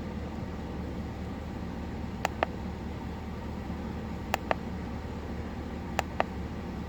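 2005 Chevy 2500HD's 6.0-litre V8 idling as a steady low hum, an engine that has a misfire and knocking. Three times, a quick pair of sharp clicks sounds over it.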